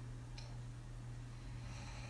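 A sleeping woman's breathing in the lull between heavy open-mouthed snores: a short click about half a second in, then a faint breath starting near the end, over a steady low hum.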